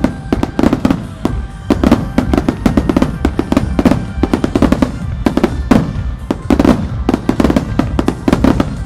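Aerial firework shells bursting in rapid succession, several a second and overlapping, over music playing from loudspeakers as part of a fireworks show set to music.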